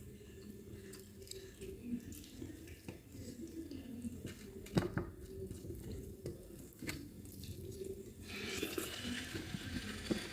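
Quiet eating at a table: soft chewing with a few sharp clicks from dishes, and a light hiss that comes in near the end.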